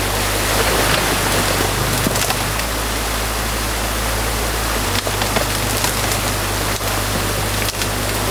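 Steady rush of water pouring through a breached beaver dam, with an excavator's diesel engine running underneath as a low, steady hum.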